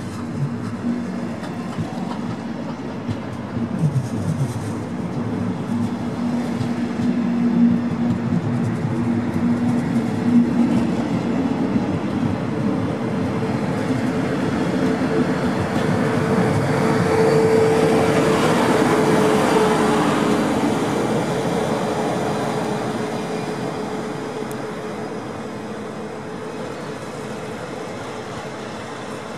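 Electric regional train of double-deck coaches hauled by a class 111 electric locomotive, running by on the track. Wheels rumble over the rails with a few knocks in the first half, and the locomotive gives a steady hum. The sound grows louder to a peak about two thirds of the way through, then fades.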